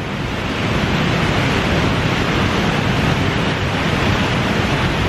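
Steady rushing noise of the Maligne River running through the canyon below, mixed with wind buffeting the microphone.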